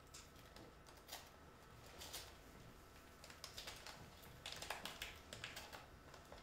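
Faint, quick, irregular clicks and rustles of a small object being handled by hand, thickest in the second half, against near silence.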